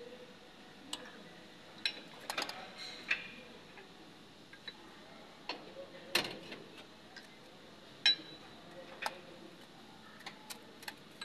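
Hand tools clicking and clinking against metal in a dozen or so irregular, sharp strikes, some with a brief metallic ring, over a faint steady background.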